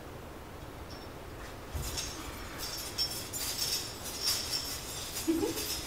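Small metal pieces jingling and clinking in quick, irregular shakes, starting about two seconds in.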